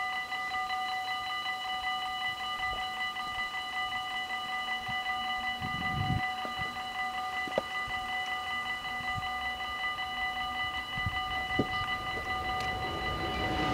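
Level-crossing warning bells ringing steadily with a fast, even ring, the signal that a train is due. Near the end the noise of the approaching train begins to swell.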